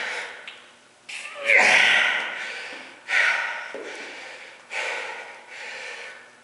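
A man breathing hard and forcefully through his mouth and nose while straining to bend steel nails with his hands: three loud, hissing blasts of breath, each fading over about a second.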